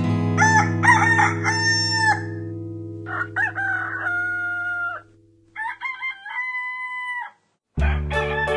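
Rooster crowing three times, each a cock-a-doodle-doo ending in a long held note, over a fading guitar chord. Music starts again near the end.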